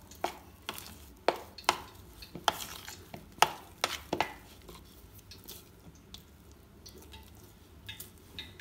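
A metal spoon stirring thick ground moong dal batter in a bowl, the spoon knocking against the bowl about eight times in the first four or five seconds, then quieter scraping with a few light ticks near the end.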